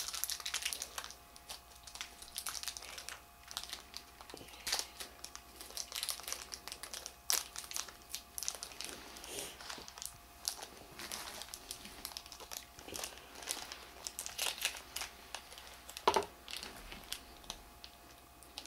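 Small plastic Shopkins blind bag crinkling and tearing as it is pulled open by hand from a small cut hole, in irregular crackles.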